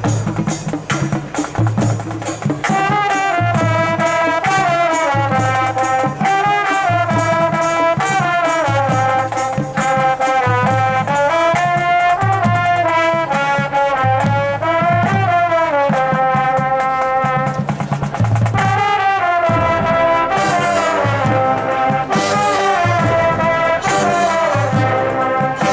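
High school marching band playing: quick percussion strokes at first, then the brass section enters about two and a half seconds in with a sustained melody over a steady low pulse.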